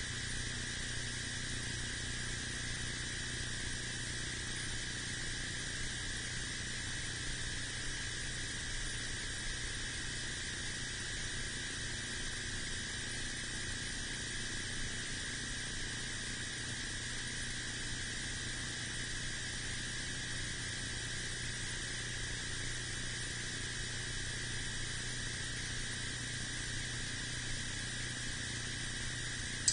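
Steady electronic hiss with a constant high-pitched whine, unchanging throughout, with no beeps or pulses.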